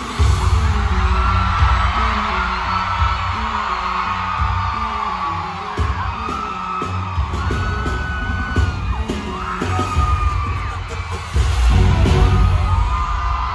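Live pop concert music over an arena sound system: a loud track with a heavy bass beat and singing, with fans screaming and whooping over it. The bass kicks in hard right at the start and again about eleven seconds in.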